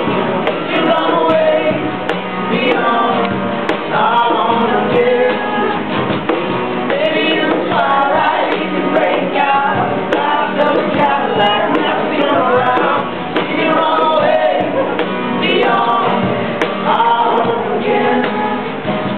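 Live acoustic band music: acoustic guitar with voices singing, playing on steadily.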